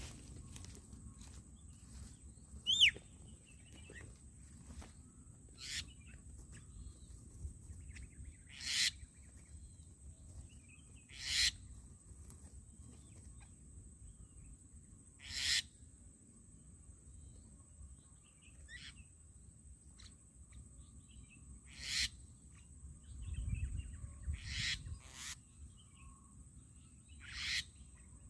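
Birds calling: short harsh high calls every few seconds, with a sharp falling whistle about three seconds in, over a steady high-pitched hum.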